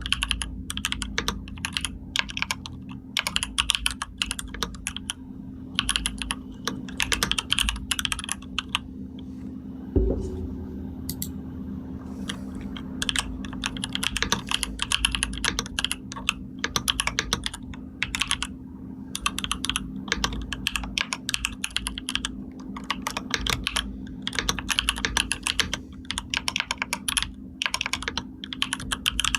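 Computer keyboard typing in quick runs of key clicks with short gaps, and a longer pause about a third of the way through marked by a single thump. A steady low hum sits underneath.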